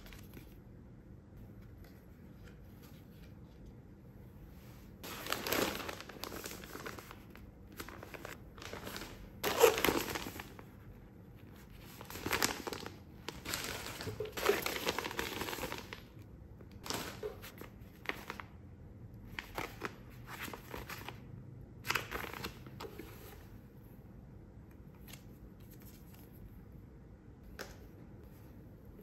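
Frosted plastic packaging bags rustling and crinkling in irregular bursts as they are handled and lifted out of a cardboard box. Quieter handling comes between the bursts, and the last several seconds hold only faint ticks.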